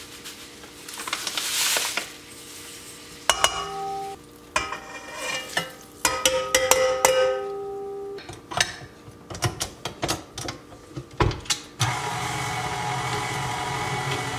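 Ingredients going into a KitchenAid stand mixer's stainless steel bowl: a pour from a bag, then utensils clinking and ringing against the metal bowl. About twelve seconds in, the mixer's motor starts and runs steadily.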